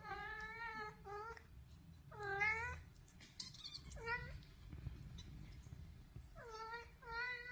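Domestic cat meowing repeatedly: about six drawn-out meows with pauses between them, two of them close together near the end.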